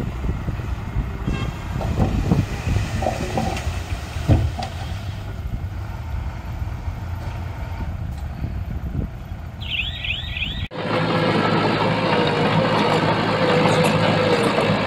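Diesel engine of heavy earthmoving machinery running with a low rumble and scattered metal clanks and knocks. A few short high squeaks come just before the sound changes abruptly, about two-thirds in, to a steadier, higher engine drone.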